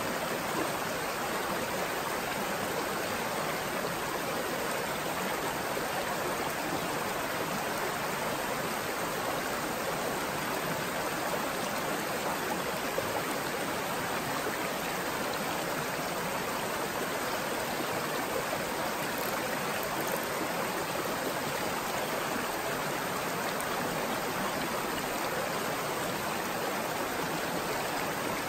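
A small mountain stream rushing steadily over rocks and little cascades.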